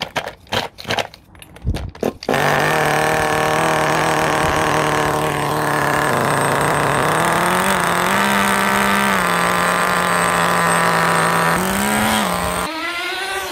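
Small nitro RC car glow engine (HSP 94102 touring car) being pull-started: a few quick rattling pulls of the cord, then it catches about two seconds in and runs steadily at idle, with brief rises in pitch from light throttle blips. The new engine is running well on its current tune.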